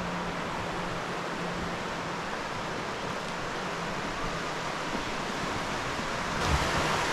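Rushing river water, a steady whitewater hiss; it grows louder and brighter about six seconds in.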